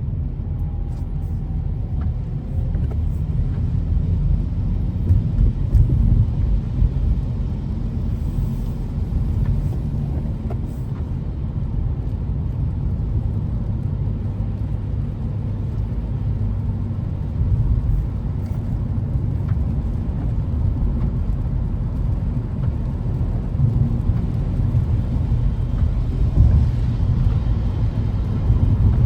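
Steady low rumble of a car driving: road and engine noise with little change.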